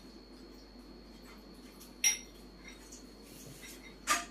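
A spoon clinking twice against a bowl, about two seconds apart, the first clink ringing briefly.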